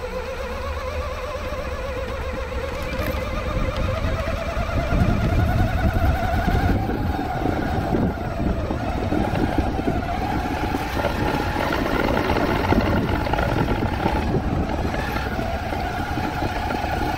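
Electric drive motor and gearbox whine of a CrossRC BC8 RC truck towing a loaded trailer, the pitch climbing over the first few seconds as it gathers speed and then holding steady. Under it runs the rumble of its wheels rolling over brick paving, which grows stronger a few seconds in.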